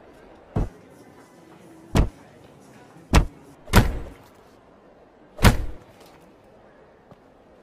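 A Fiat 500S's doors slammed hard five times at uneven intervals, each a short, sharp bang.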